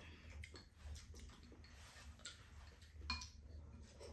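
Faint, scattered light clicks of chopsticks and a spoon against small ceramic bowls while eating, the loudest tap about three seconds in.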